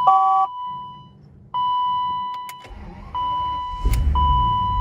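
A 1992 BMW 750iL's warning gong chimes repeatedly, about every second and a half, after a quick beep sequence at the start. From about the middle, the V12 engine cranks on a jump pack and catches about four seconds in, settling into a running rumble.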